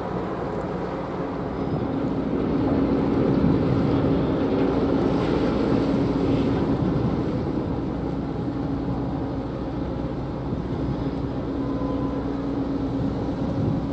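Steady low rumble of a ship's engines, with a steady hum, as the ship manoeuvres slowly alongside a quay.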